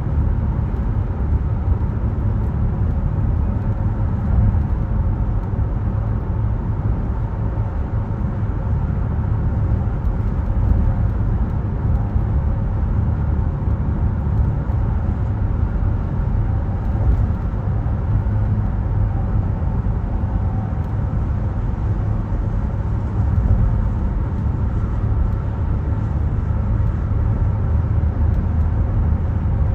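Car driving at highway speed: a steady road and tyre rumble, heaviest in the low end and unbroken throughout.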